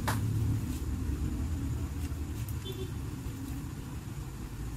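Steady low rumble with a few brief, sharp snips of scissors cutting hair.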